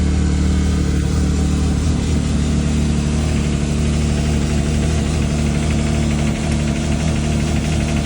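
Can-Am Maverick X3 XMR Turbo RR's turbocharged three-cylinder engine idling steadily, with a fast, even ticking over the engine note, plainest in the second half; the cause of the tick is unknown.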